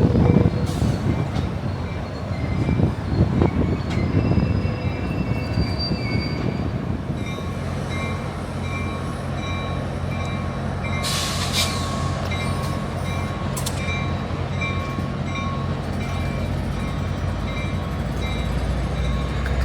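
Train at a station: a diesel locomotive's engine runs with a steady hum while a bell rings repeatedly. A rougher rumble of rail cars comes in the first few seconds.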